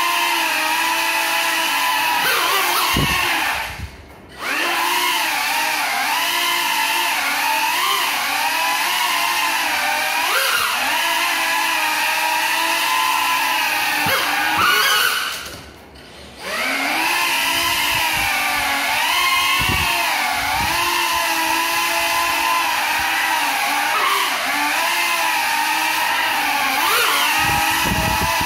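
Small ducted FPV quadcopter flying on broken propellers, its motors whining and wavering in pitch as the throttle changes. The whine cuts out briefly twice, about four seconds in and again about sixteen seconds in, then comes back.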